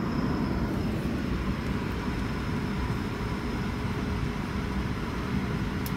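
Steady cabin noise inside an Airbus A220 taxiing after landing: an even low rumble of engines and airflow, with a faint steady hum.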